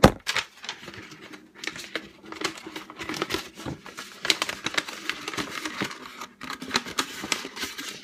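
Paper crumpling and crinkling in irregular bursts as a printed paper cutout is crushed and stuffed into a glass jar, with a sharp knock at the start.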